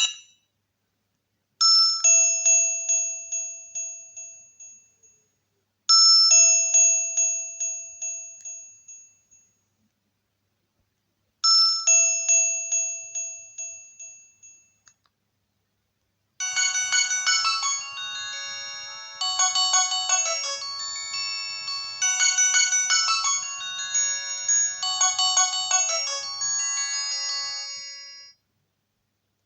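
Nokia 108 (RM-945) ringtones playing from the phone's speaker. A bell-like chime sounds three times, several seconds apart, each one ringing out and fading over a few seconds. Past the middle a different tune of quick electronic keyboard notes plays for about twelve seconds and then stops.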